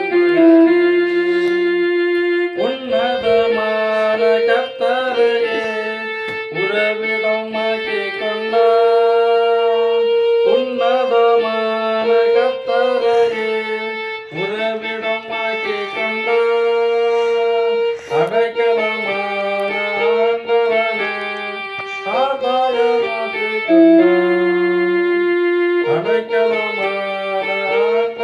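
Portable electronic keyboard being played: a melody of long held notes that steps between pitches over a lower sustained line, in phrases with short breaks between them.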